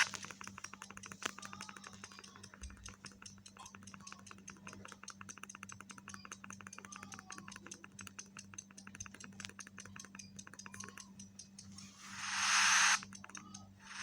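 Rapid run of small clicks from a feature phone's keypad being pressed over and over, several a second, then a loud burst of radio-like hiss near the end.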